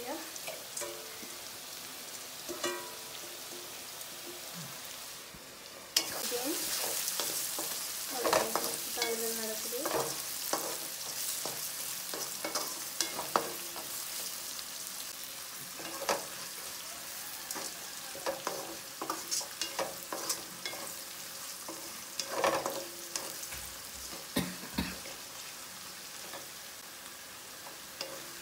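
Onions, green chillies and dried red chillies sizzling in hot oil in a metal kadai, stirred with a spatula that scrapes and knocks against the pan. The sizzle starts suddenly about six seconds in.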